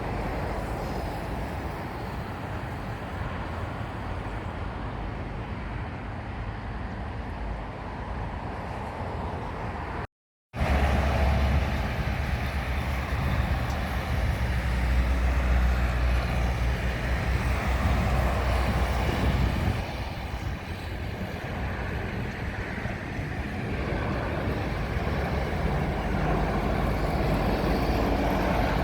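Steady low engine rumble. The sound cuts out completely for a moment about ten seconds in, comes back stronger and deeper, and eases off around twenty seconds.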